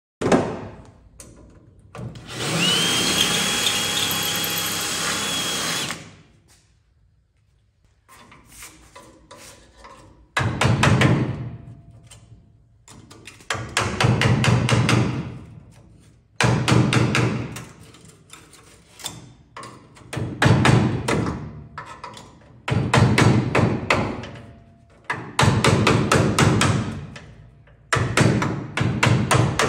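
Pneumatic air chisel (air hammer) hammering at the spot-welded steel of a hinge pillar cap in about eight short bursts of rapid blows, cutting the cap free. Before it, about two seconds in, a power tool runs for a few seconds with a high whine that rises and then holds steady.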